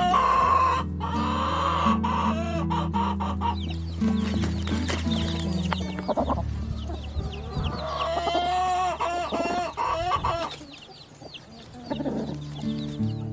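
Chickens clucking and calling, a run of short clucks with longer drawn-out calls in the middle, over steady background music.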